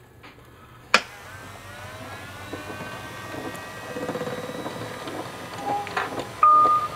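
A sharp click about a second in, then a homemade motorised contraption starting up with a rising whine that settles into a steady mechanical running with irregular ticking. A loud, steady, high electronic beep sounds near the end.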